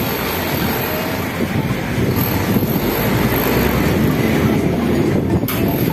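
Aluminium 900 series sliding door panel rolling along its track on its rollers: a steady rolling rumble, with a sharp knock near the end.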